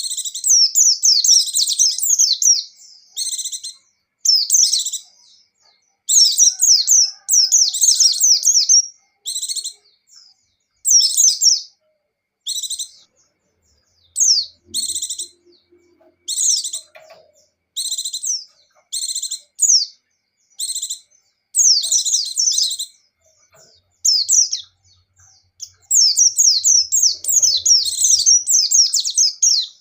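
White-eye (pleci) singing: rapid, high-pitched twittering phrases, broken by short pauses, with longer unbroken runs at the start, in the middle and near the end.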